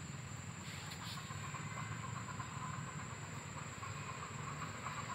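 Steady outdoor background noise: a low hum under a continuous high, thin whine, with a fast pulsing chirr coming in about a second in.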